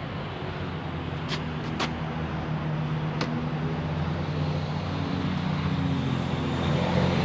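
Steady low drone of a running vehicle engine that grows gradually louder, with a few sharp clicks in the first few seconds.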